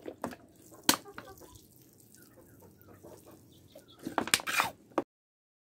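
Water from a plastic bottle splashing onto potting soil in a cluster of bursts about four seconds in, with faint chicken clucks in the background and a sharp knock about a second in. The sound cuts off suddenly about five seconds in.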